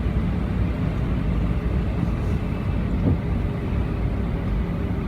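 Airbus A320 cabin noise on the ground before takeoff, heard from inside the cabin: a steady low rumble of the jet engines and airframe. A light thump comes about three seconds in, and a faint steady hum starts just after it.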